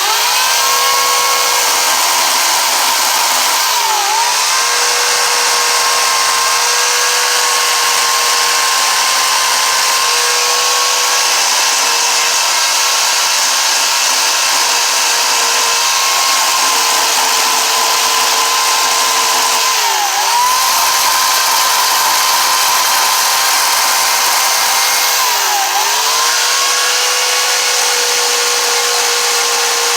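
Small power carving tool switching on at full speed and running steadily with a high whine while gouging wood. Its pitch sags briefly three times, about 4, 20 and 26 seconds in, as it bogs down under load.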